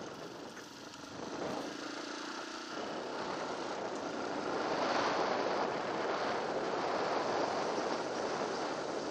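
Off-road motorbike riding along a trail: a steady engine drone mixed with rushing noise that swells louder about halfway through.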